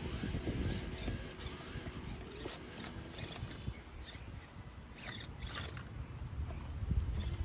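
Small RC rock crawler (Axial AX24) crawling over rocks: the motor and gears whir unevenly, and the tyres and chassis give a few clicks and scrapes against stone, mostly in the second half.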